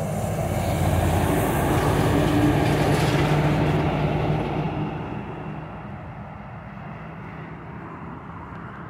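A heavy truck pulling a bulk tanker trailer passing close by on a highway: low diesel engine drone with tyre and wind noise, loud for the first few seconds, then fading as it drives away.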